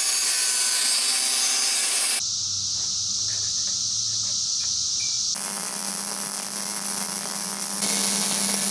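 Metalworking tools on half-inch steel square tubing. Three abruptly cut clips of steady hissing tool noise, the last with a steady low hum under it.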